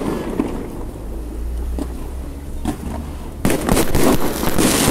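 New Year fireworks: a few faint distant bangs over a low rumble, then about three and a half seconds in a sudden loud burst of shells going off, with dense crackling that carries on.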